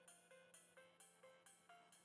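Faint background music of short ringing notes, about two a second.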